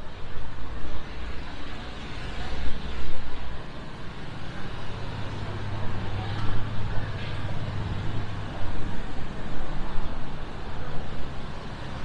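City street traffic: a steady wash of road noise, with a vehicle engine humming louder for a few seconds in the middle.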